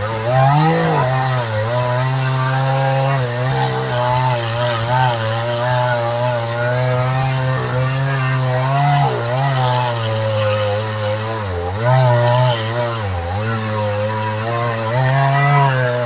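Chainsaw at full throttle cutting into a large pine trunk. The engine pitch sags and recovers several times as the chain bites under load.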